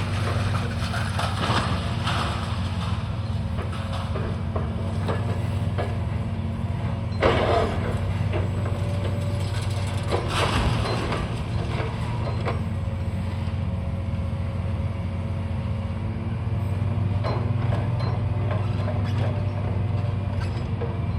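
Demolition machinery's engine running steadily, with scattered crunches and knocks of breaking debris; the loudest crash comes about seven seconds in.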